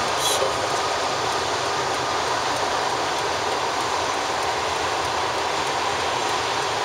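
Freight train of tank cars rolling past at a steady pace: a continuous noise of steel wheels running over the rails and the cars rattling.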